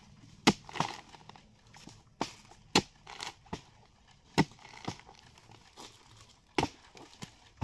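An axe chopping into a rotten palm trunk: about eight sharp blows at irregular intervals, each followed by the crackle of splintering, fibrous wood.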